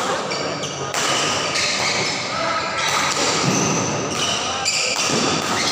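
Badminton doubles rally: rackets hitting the shuttlecock and players moving on the court, with spectators' voices and shouts throughout.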